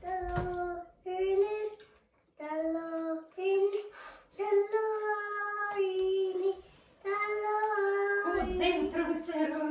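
A child singing a simple tune in long held notes, phrase by phrase with short pauses between.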